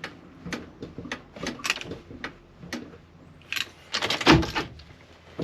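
Sharp mechanical clicks and clunks from the 2009 Ford E150's column shifter and brake-shift interlock solenoid as the shifter is released from park, with a louder clatter and a heavier clunk about four seconds in.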